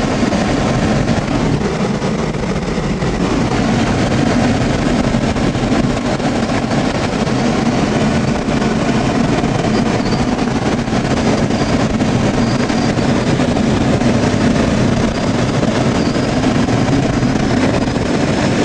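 Car driving at speed, heard from inside the cabin: a steady rumble of road, engine and wind noise.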